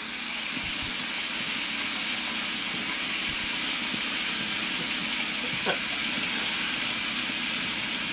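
Steady hiss of water running from a bathroom sink tap.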